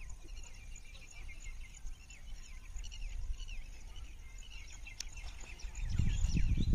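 Many small birds chirping and twittering together, short quick calls all through. Near the end a low buffeting rumble comes in and is the loudest sound.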